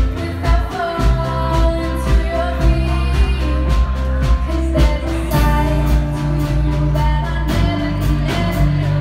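Live band playing: a young woman singing lead over electric guitar, bass guitar and drums.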